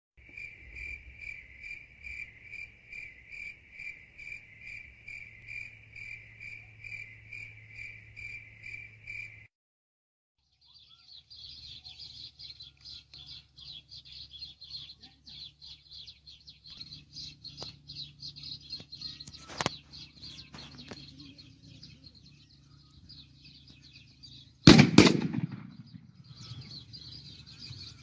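Cricket-like chirping, a little over two evenly spaced chirps a second, for the first nine seconds. After a short break comes a dense, fast, high chirring of insects over a low hum, with a sharp click near the middle. About 25 seconds in there is a single loud gunshot.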